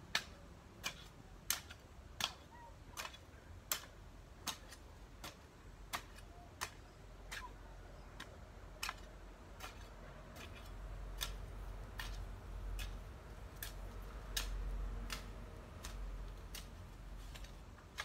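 Hand hoe chopping into garden soil in a steady rhythm, a sharp click a little more than once a second. A low rumble builds in the second half.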